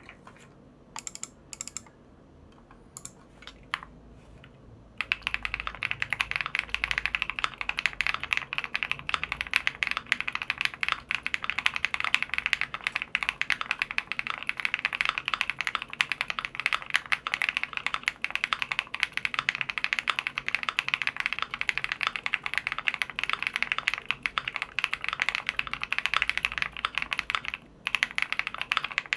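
Sun68 mechanical keyboard with stock Flower Shadow switches, a PC plate and ABS double-shot keycaps being typed on: a few single keystrokes, then fast continuous typing from about five seconds in, with a brief pause near the end.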